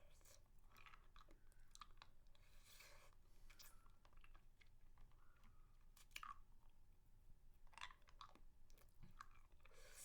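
Soft close-miked mouth sounds of eating a spicy mango lollipop: scattered wet smacks and clicks, with a few louder smacks about 6 and 8 seconds in.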